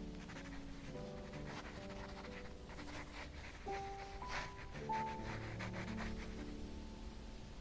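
Soft, scratchy strokes of a pen drawing on paper, repeated for a few seconds, over gentle background music with held notes.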